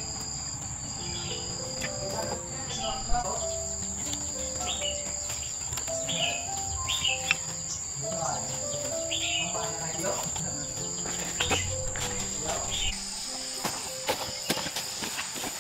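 Insects keep up a steady, high, unbroken drone, with short chirps repeating every second or so. Soft background music runs under it. A low rumble drops away near the end, leaving a few light clicks.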